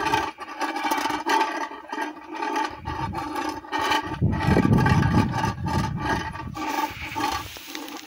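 Homemade wind-driven tin-can friction noisemaker, a crop-protection scarer for wild boar and nilgai: as the cloth sail swings the can on its pole, friction makes the can give out a rough, pitched rasping tone that breaks off and starts again in uneven pulses. A low wind rumble on the microphone joins in during the middle.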